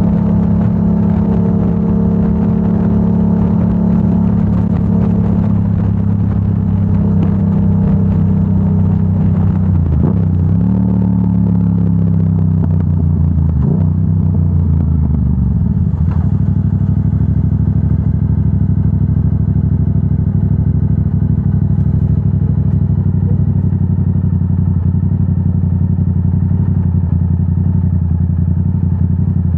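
Yamaha R7's parallel-twin engine through a Yoshimura AT2 full exhaust, running steadily. Its revs then fall in three steps over several seconds, and it runs on steadily at lower revs.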